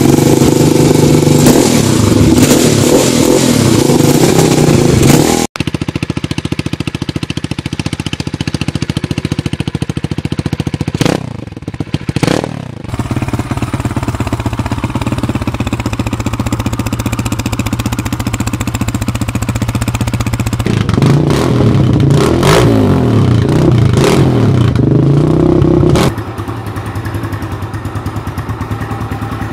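Kawasaki KLX140 dirt bikes' single-cylinder four-stroke engines heard in a run of separate clips. The first runs loud and hard through a BBR aftermarket exhaust until a sudden cut about five seconds in. Next comes a steady idle through a Pro Circuit exhaust, with two quick throttle blips and then a stretch of revving. Near the end a stock KLX140L idles more quietly.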